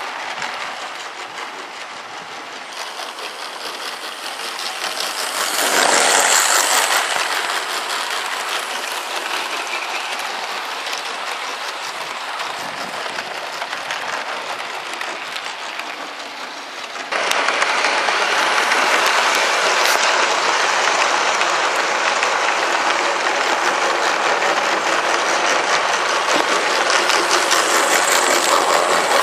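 Model train running past on garden railway track: the coaches' wheels rolling and clicking over the rail joints. It swells about six seconds in and gets suddenly louder about two-thirds of the way through.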